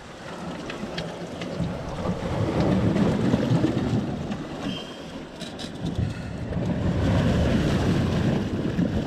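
Seawater surging and washing through the gaps between jetty rocks, swelling twice, with wind buffeting the microphone.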